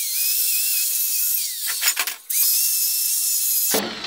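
Electric drill spinning a wire-brush wheel against a cylinder head, cleaning the metal before welding: a steady high whine with a scratchy hiss. About a second and a half in the whine falls away as the drill is stopped, a few knocks follow, then it starts again and cuts off just before the end.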